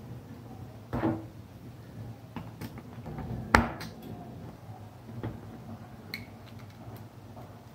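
Light knocks and clicks of plastic contactors, a plug-in relay and stiff wires being handled and set down on a tabletop, a few scattered taps with one sharper knock about three and a half seconds in.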